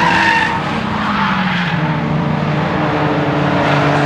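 Nissan S15 Silvia driven hard on a circuit: the engine runs under load, and the tyres squeal for about the first half second before the engine pulls on alone.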